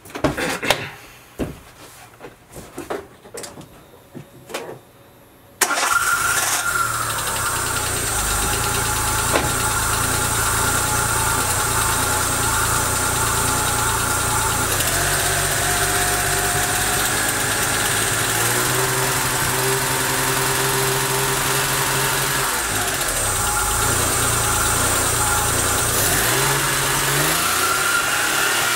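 A few knocks and clicks, then about six seconds in the Daewoo Matiz's engine starts and keeps running. Its idle is unsteady, the engine note shifting and wavering: the unstable running of a worn engine that smokes, burns oil and misfires.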